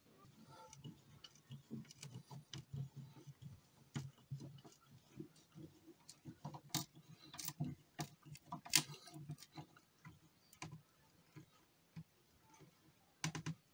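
Faint, irregular clicks and small taps of screws being handled and set by hand into a particleboard shelf panel, with a few sharper ticks around the middle.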